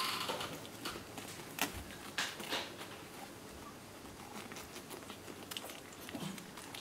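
Newborn whippet puppies nursing: scattered soft sucking and smacking clicks with rustling of the bedding, and one brief high squeak at the start.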